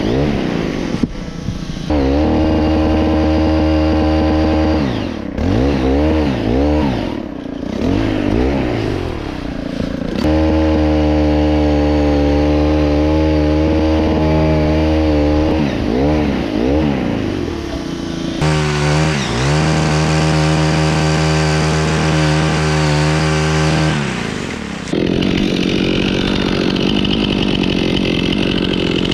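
Two-stroke chainsaw running, held at high revs in long steady stretches with quick throttle blips rising and falling between them. About 25 seconds in it changes to a rougher, noisier buzz.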